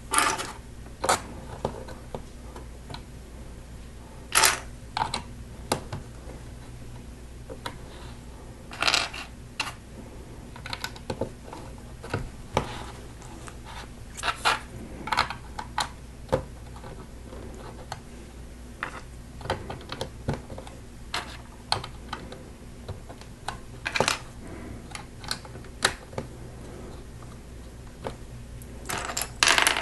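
Plastic LEGO pieces clicking and clattering at irregular moments as bricks are handled and pressed together, over a steady low hum.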